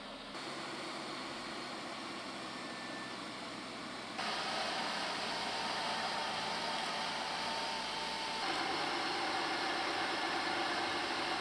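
SEAT SUV running on chassis dynamometer rollers in an anechoic chamber: a steady rush of tyre and drivetrain noise. It steps up louder about four seconds in and again about eight seconds in.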